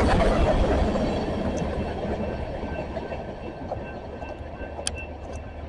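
CSX freight train rolling by and moving off, its rumble fading steadily, with a few faint clicks near the end.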